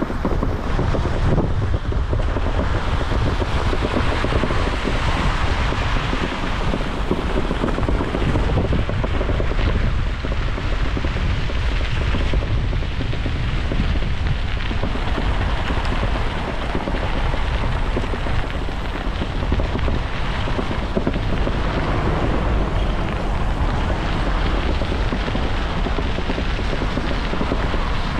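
Steady wind rushing and buffeting over the microphone of a camera riding along on a moving bicycle, a constant low rumble with a hiss over it.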